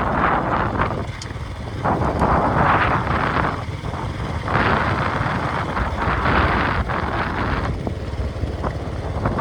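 Vehicle running with wind noise on the microphone: a steady low rumble under gusty noise that swells and fades every second or two.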